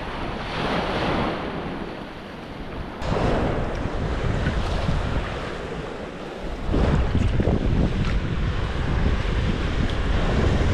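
Small surf breaking and washing on a sandy beach, with wind buffeting the microphone. Washes of wave noise swell and fade, and a heavier wind rumble sets in about seven seconds in.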